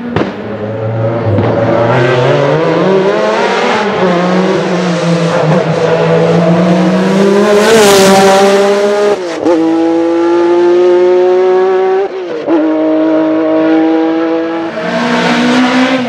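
A Porsche 911 racing car accelerating hard uphill past the listener. The engine climbs in pitch, is loudest about eight seconds in, then drops sharply with quick upshifts near nine and twelve seconds and again near the end.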